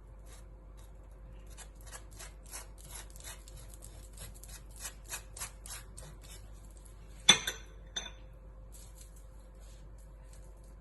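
Butter knife scraping across bread in quick repeated strokes, about three a second, as butter is spread on the toast. About seven seconds in comes a sharp clink of cutlery, the loudest sound, and a smaller one just after.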